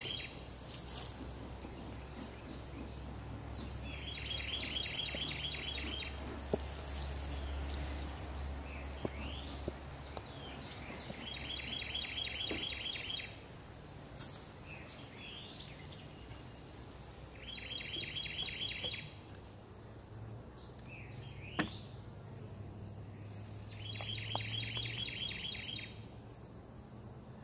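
A songbird sings a rapid, even trill of quick high notes, about one and a half to two seconds long, four times at intervals of roughly six to seven seconds, over a low rumble. A single sharp click sounds about two-thirds of the way through.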